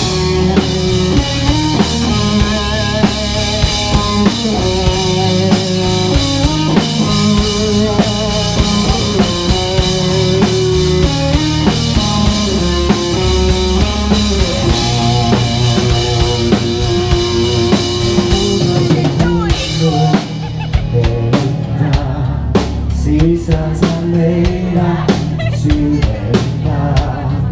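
Rock band playing live and loud: a drum kit beating under held chords and a bass line, with no singing yet. About twenty seconds in the held chords drop away and the drums and bass carry on.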